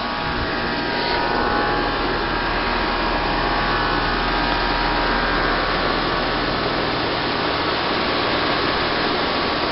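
Bryant Evolution 16 SEER two-stage heat pump outdoor unit running: a steady rush of air from the condenser fan with a hum of several steady tones from the compressor and fan motor.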